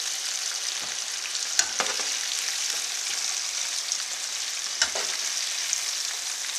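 Hot oil sizzling steadily as egg-and-flour-coated chicken pieces deep-fry in a wok. Chopsticks and a slotted spatula click against the pan a few times as pieces are lifted out of the oil.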